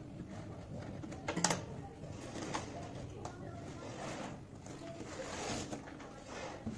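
A cardboard shipping box being opened by hand: scissors cut through its packing tape with sharp clicks, then a strip of tape and cardboard is torn off the lid with a rustling rip.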